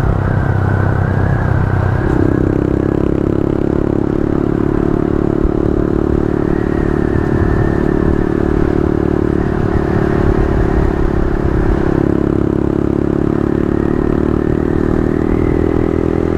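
Honda Grom's small single-cylinder engine running under way, heard from inside the rider's helmet with wind noise. The engine note climbs about two seconds in, then holds steady with a couple of brief dips.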